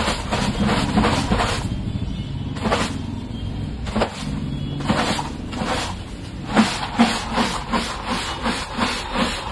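Crisp fried potato chips rustling and crunching against each other and the plastic as they are tossed by hand in a large plastic tub to coat them in spice powder. From about two-thirds in, the tub is shaken in a quick even rhythm of about two to three shakes a second, over a low steady rumble.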